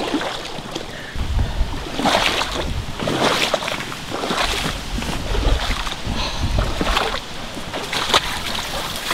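Bare legs wading through a fairly deep creek, the water sloshing and splashing in bursts about once a second as the walker strides, over the steady rush of the stream.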